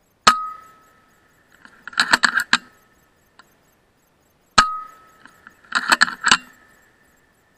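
Two suppressed shots from an FX Impact M3 .22 PCP air rifle, about four seconds apart. Each is a sharp crack with a brief ringing tone, followed about a second and a half later by a quick run of metallic clicks as the rifle's cocking lever is worked to chamber the next slug.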